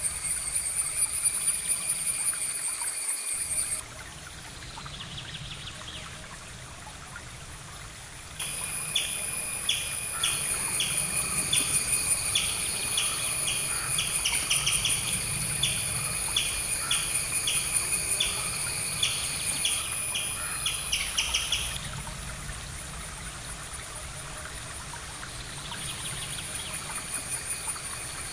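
Outdoor nature ambience: a high, steady chirping chorus with a repeated chirp about twice a second, over a faint trickle of water. The chirping cuts out abruptly about 4 seconds in, returns about 8 seconds in, and fades back down after about 22 seconds.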